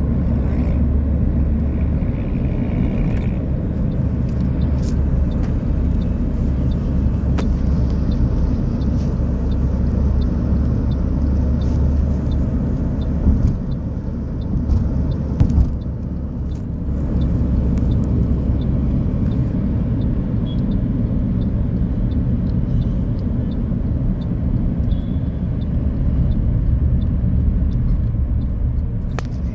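Road noise heard inside a moving car's cabin at highway speed: a steady low rumble of tyres and engine. It dips briefly about halfway through, with a few short louder knocks.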